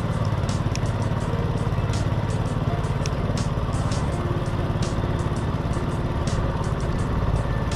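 A small boat engine running steadily, with scattered sharp ticks over it.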